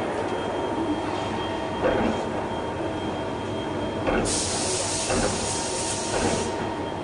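Steady heavy machine-shop running noise with a faint whine, broken by several metallic clanks and a hiss lasting about two seconds past the middle.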